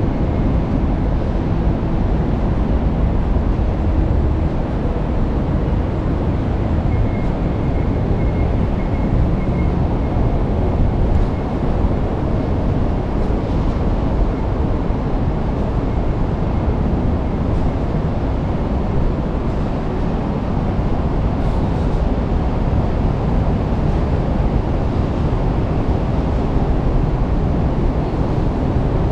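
Steady low rumbling roar of wind buffeting the microphone, mixed with city traffic noise, unchanging throughout.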